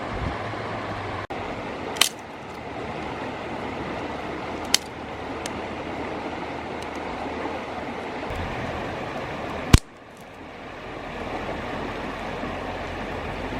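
Steady rushing of river water, broken by three sharp clicks, the loudest near the end.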